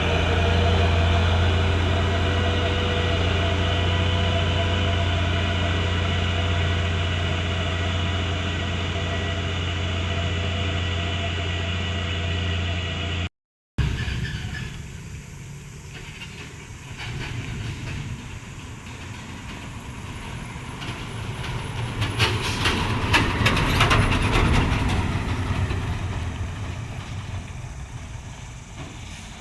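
Heavy diesel truck engine running at a steady note with a strong low hum. After a break, a truck grinds past under load with rattling, getting loudest a little past the middle and then fading.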